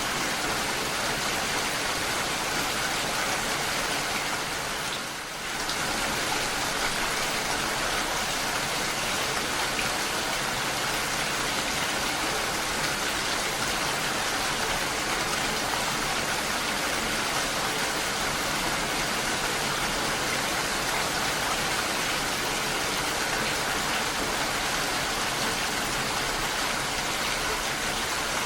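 Steady rainfall: a dense, even hiss of rain on surfaces, with a brief dip in loudness about five seconds in.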